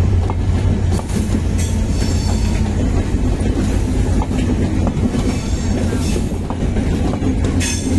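Passenger coaches of the Benapole Express, a Bangladesh Railway intercity train, rolling past close by. There is a steady rumble, irregular clanks and clatter from the wheels and couplings, and brief high wheel squeals.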